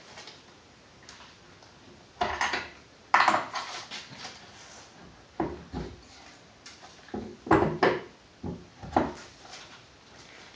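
Metal rifle parts and tools clinking and knocking on a workbench in short, irregular clatters during work on an AR-15's gas tube and gas block.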